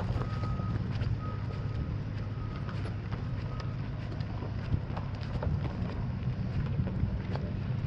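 The 6.2-litre gas V8 of a 2011 Ford F-250 Super Duty idling steadily. For the first few seconds a short high beep repeats several times, then stops.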